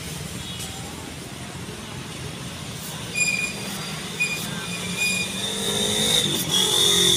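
Road traffic: a steady engine hum, with short high squeaks in the middle and a high whine that grows louder near the end.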